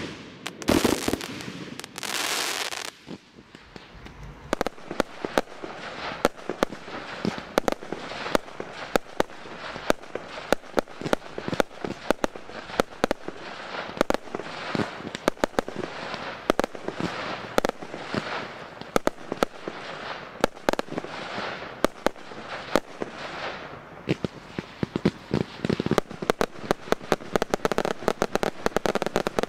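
Daytime fireworks: a loud hissing rush for the first few seconds, then a dense, continuous string of sharp bangs and crackles, several a second.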